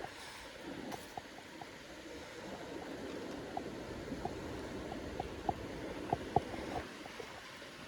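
River water running and trickling, a steady rush with small irregular plinks and gurgles.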